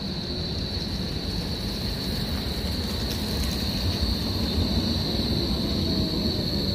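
Bombardier Flexity Berlin low-floor tram rolling past close by on street track, its running rumble growing louder as it draws alongside, over a steady high-pitched whine.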